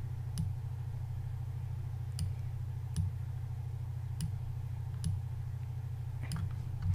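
About seven sharp clicks at uneven intervals from someone working a computer, over a steady low hum.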